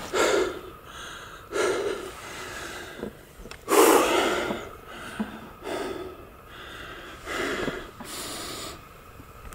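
A man panting heavily, out of breath from exertion, drawing deep, loud breaths in and out every second or two. The strongest breath comes about four seconds in.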